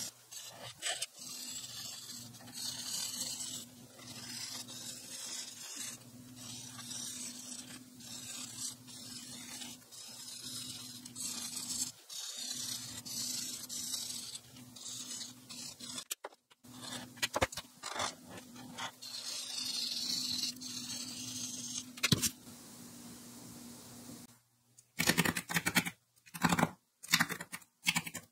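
Twin-tip marker strokes scratching across paper as a drawing is coloured in, heard as repeated runs of dry hiss over a faint low hum. Near the end, a run of sharp clicks and taps.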